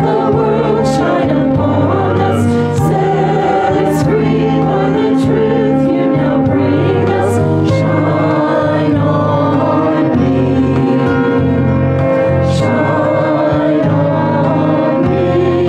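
Church choir singing a gospel song, with held chords and sustained low notes changing every second or two.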